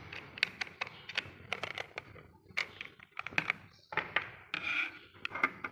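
Irregular small clicks and taps of hard parts being handled as a hobby DC motor is fitted to a robot car chassis with screws and nuts.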